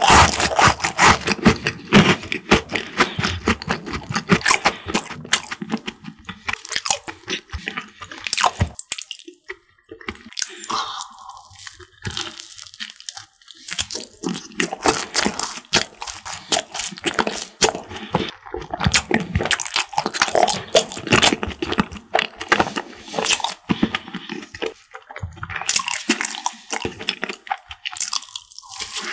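Close-miked eating of a crisp croffle (croissant waffle) topped with cream: dense, crisp crunching and chewing with wet squishing. A quieter pause comes about ten seconds in before the crunching resumes.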